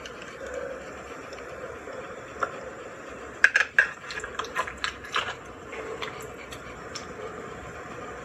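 Metal tongs stirring and lifting saucy braised seafood and noodles in a pan, making wet stirring sounds. A run of sharp clicks and clinks from the tongs comes between about three and a half and five seconds in.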